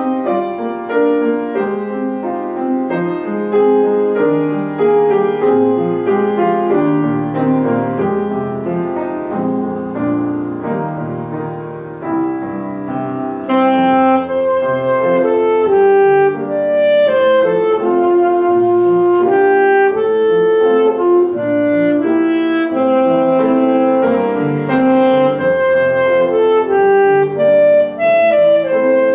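Saxophone and upright piano playing a piece together. The piano carries the first part alone or nearly so, and the saxophone comes in strongly about halfway through, playing long held notes over the piano chords.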